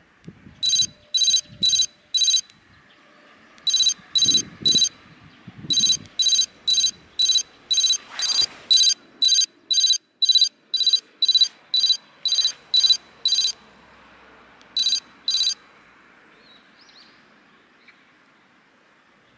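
Nubeam NB-600 bicycle safety light's electronic bell, set off from its handheld remote: short high electronic beeps about two a second, in a run of four, then three, then a long run of about sixteen, then two more.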